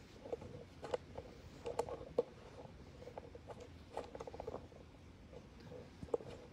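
Faint, scattered clicks and taps of small handling noises, bunched about a second to two seconds in and again around four seconds in.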